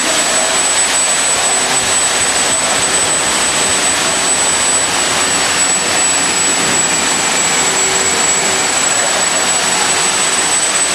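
Vacuum lifting machine's pump running: a loud, steady rushing hiss with a thin high whine over it.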